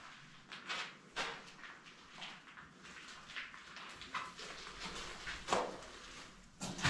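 Footsteps scuffing and crunching on a gritty concrete floor in a small concrete bunker room, with two louder scuffs near the end.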